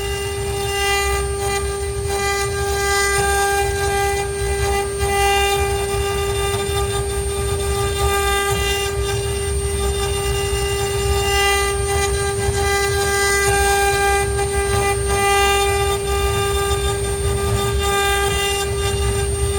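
ART1325 CNC router running, its spindle giving a steady whine, while higher motor tones rise and fall away every second or so as the axes move.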